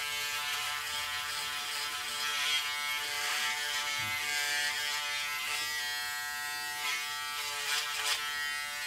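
Braun Series 6 electric foil shaver running steadily as it is moved over thick stubble of a few days' growth: a constant hum with a hiss of the cutting head over it.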